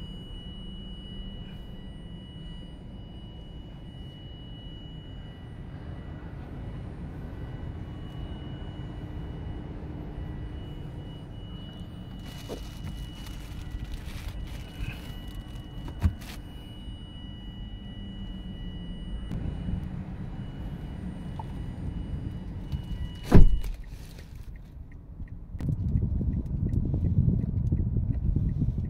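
Handling noise inside a car's cabin: a steady low rumble with a faint high tone, and one loud thunk about 23 seconds in, after which the tone stops. A louder low rumble follows a couple of seconds later.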